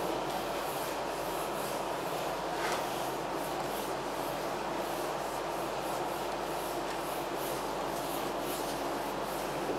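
Handheld duster wiping a whiteboard in repeated rubbing strokes, over a steady background hiss.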